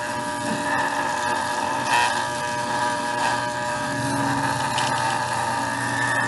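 Corded electric pet clippers running with a steady buzz while trimming the fur on a small dog's face. A brief knock comes about two seconds in.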